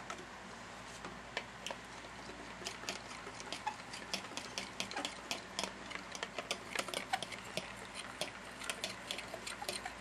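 Raw eggs being beaten with a utensil in a container: rapid, irregular clicks of the utensil striking the sides, starting about a second in and growing busier.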